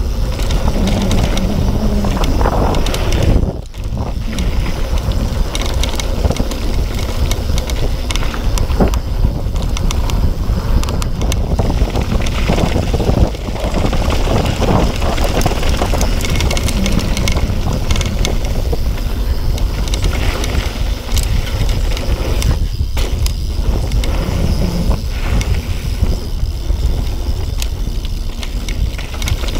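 Yeti SB6 full-suspension mountain bike running fast down a packed-dirt trail: steady wind rush on the microphone over tyre noise, with frequent rattles and clacks from the bike. The noise dips briefly about three and a half seconds in.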